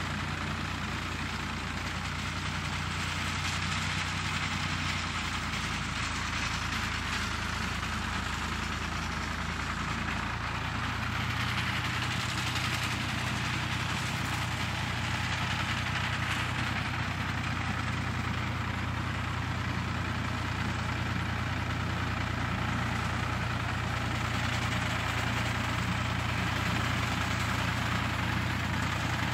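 Farm tractor engine running steadily while mowing, its pitch shifting slightly up about ten seconds in and growing a little louder toward the end as it draws closer.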